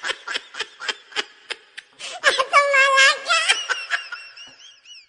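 A person laughing in quick ha-ha bursts, breaking into a long held high note about two and a half seconds in, then trailing off in short falling giggles that fade toward the end.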